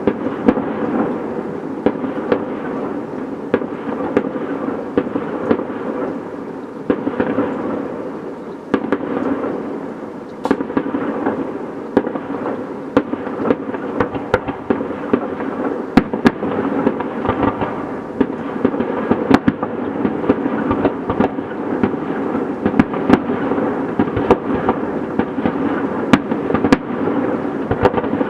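Fireworks display: a continuous dense crackle and rumble of bursting shells, with sharp bangs going off several times a second throughout.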